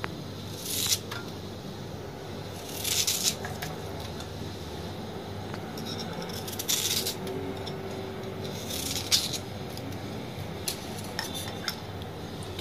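Knife cutting peeled purple yam into big chunks over a pressure cooker, the pieces dropping in among the vegetables: about four short clatters a few seconds apart, with a few small clicks between.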